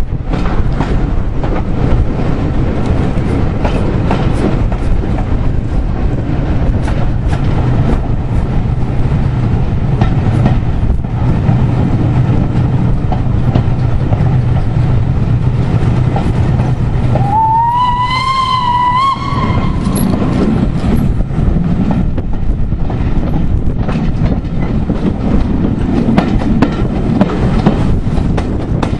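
Heritage steam train running, heard from a carriage window: a steady rumble of wheels on the rails with scattered clicks over rail joints. A little over halfway through, the steam locomotive's whistle sounds once for about two seconds, rising slightly in pitch as it opens.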